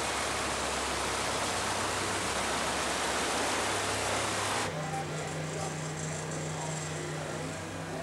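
Rushing mountain stream water over rocks, a steady loud wash that cuts off suddenly about four and a half seconds in. A low steady hum with faint outdoor background follows.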